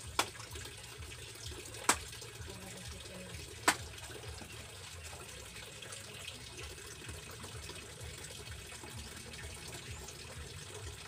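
Three sharp chopping blows, about two seconds apart, striking a large tulingan (bullet tuna) on a wooden cutting board to cut through it, over a steady low hiss.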